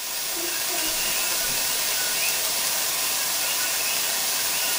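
Ground beef sizzling steadily in a little coconut oil in a pan on low heat: an even, high hiss.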